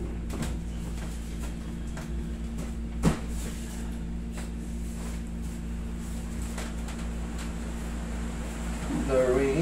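Steady low hum of a wall-mounted air conditioner, with faint scattered taps and one sharper tap about three seconds in. A short hummed voice comes in near the end.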